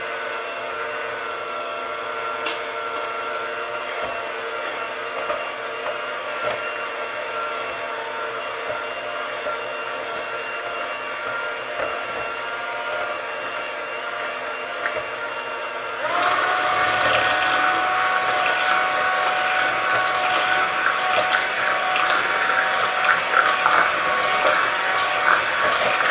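Electric hand mixer running steadily, beating banana pancake batter until smooth. It grows louder about two-thirds of the way through.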